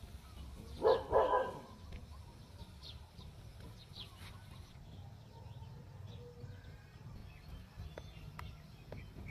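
An animal's short bark-like call, doubled, about a second in, over a faint low rumble.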